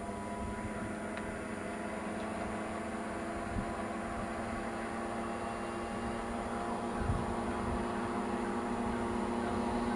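Moped engines running at a steady speed, a constant buzzing hum whose pitch does not change.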